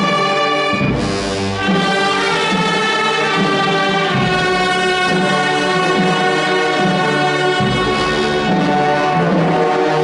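Concert wind band of woodwinds and brass playing, sustaining full chords that change every second or so, with heavier accents about a second in and again around eight seconds.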